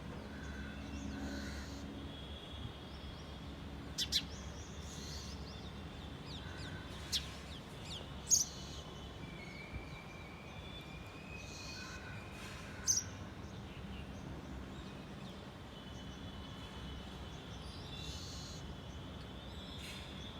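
Sparrows giving short, sharp, high chirps, single or in quick pairs, a few seconds apart, over a steady low background rumble.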